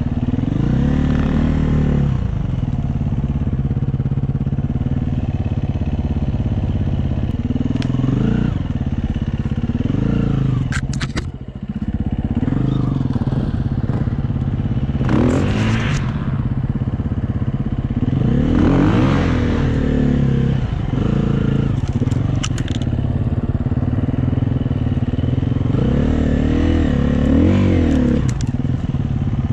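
Dirt bike engine running under a rider on a trail, its pitch rising and falling again and again as the throttle is opened and eased off. The engine drops back briefly a little over a third of the way in, and a few sharp clicks come twice.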